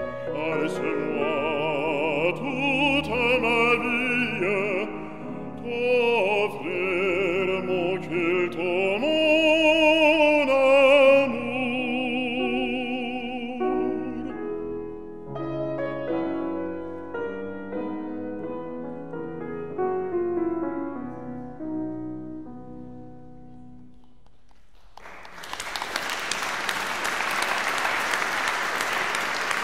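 A man sings in a classical style with wide vibrato over grand piano accompaniment. About halfway through the voice stops, and the piano plays on alone and dies away. Near the end the audience applauds.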